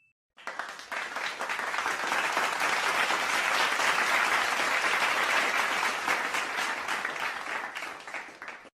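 Crowd applauding: a dense patter of clapping that swells in over the first second or so and tapers off near the end.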